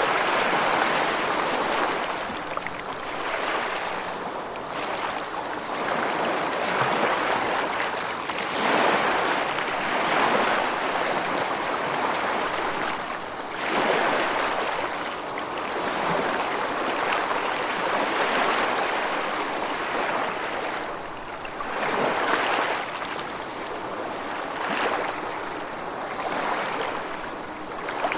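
Moving water rushing as a steady hiss that swells and eases every two to four seconds.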